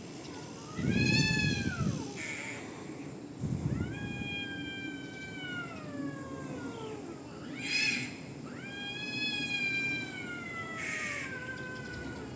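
A cat yowling: three long drawn-out wails, each sliding up and then slowly falling in pitch, with short hissy bursts between them.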